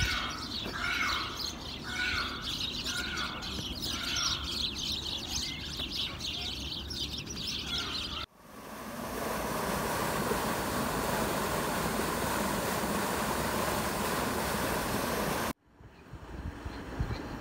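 Aviary birds chirping busily, with one call repeated about once a second. About eight seconds in it cuts off abruptly to a steady rushing noise, which breaks off again near the end.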